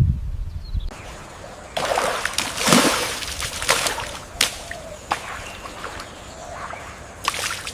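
Irregular splashing and sloshing of water with sharp clicks, in bursts that start a little under two seconds in and come again near the end.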